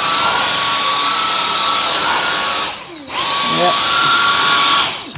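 Dyson DC44 Animal cordless stick vacuum's motor running with a steady high-pitched whine. It is switched off a little under three seconds in, switched on again a moment later with the whine rising as it spins up, and winds down near the end.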